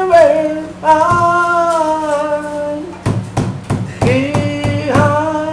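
A man singing long held notes of a song in English over guitar accompaniment, with a few guitar strums between the sung phrases about three seconds in.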